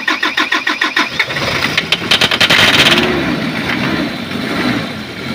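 Isuzu 4JG2 four-cylinder diesel being cranked by the starter in a quick even rhythm, then firing and catching with a burst of revs about a second in, and settling into a steady idle. It runs with the injection pump's fuel shut-off solenoid removed, on a starting aid given in place of the glow plugs, which don't work.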